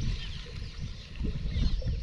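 Outdoor ambience: wind buffeting the microphone in irregular low gusts, with small birds chirping repeatedly.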